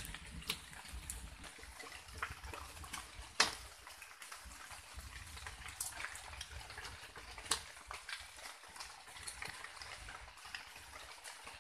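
Wooden stakes knocking and creaking as they are shifted by hand, with a few sharp knocks, the loudest about three and a half seconds in and another about seven and a half seconds in. Underneath, a light drizzle ticks and drips on the leaves.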